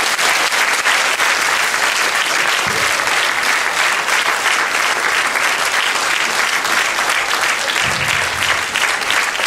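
A large audience applauding steadily, a dense even clatter of many hands clapping.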